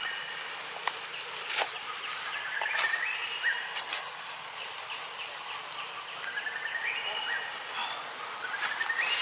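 Tropical forest ambience: a repeated rising call that climbs in steps, heard twice, over a steady high insect drone, with a few sharp clicks in the first few seconds.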